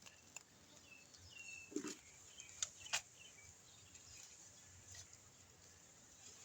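Quiet outdoor background with a few faint, short bird chirps and several soft clicks and rustles, like hands working in soil around the tubers.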